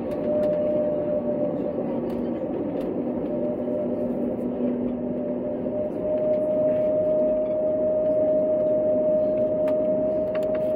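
Airbus A320neo cabin noise while taxiing: a steady engine hum with a steady whine. About six seconds in the whine grows stronger and the noise a little louder, as a lower tone drops away.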